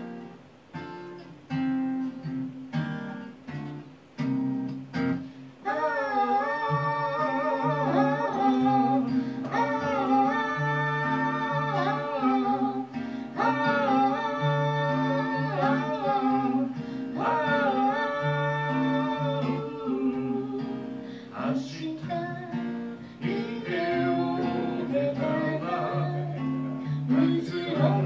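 Acoustic guitar played alone in separate struck chords for about five seconds, then a man's voice comes in singing long held phrases over the guitar accompaniment, with short breaths between lines.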